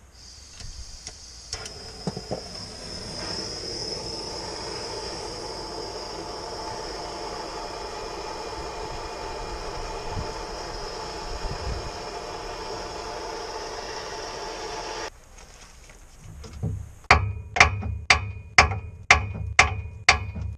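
Handheld gas torch burning with a steady hiss, shut off abruptly about fifteen seconds in. About two seconds later come roughly eight ringing hammer blows on the steel front suspension, about two a second.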